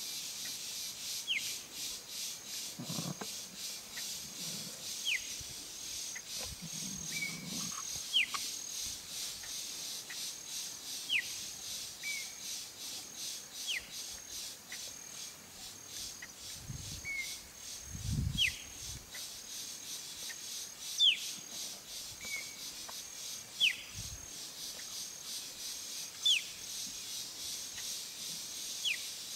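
Steady high insect trill with a short, falling bird chirp that repeats about every two to three seconds.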